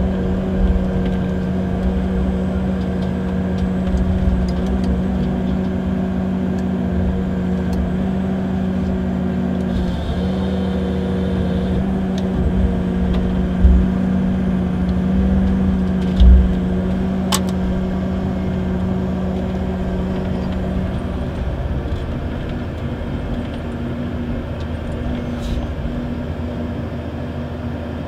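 Komatsu forestry harvester's engine running at a steady drone, heard from inside the cab, with a few low thuds and knocks from the felling head and crane, two louder thuds a little past the middle. The engine note steps slightly higher about three-quarters of the way through.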